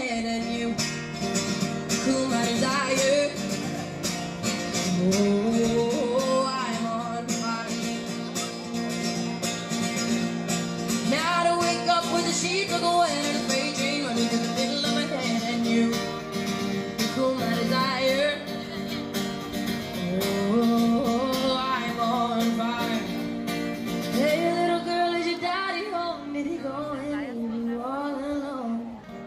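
A woman singing to her own strummed acoustic guitar, amplified through a microphone.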